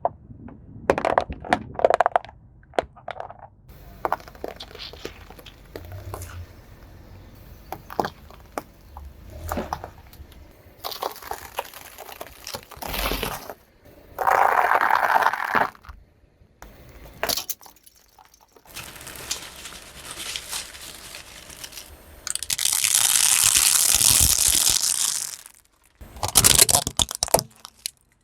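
Objects cracking, crunching and crumpling under a car tyre in a run of short separate clips with abrupt cuts between them, with a longer steady rushing noise in the later part.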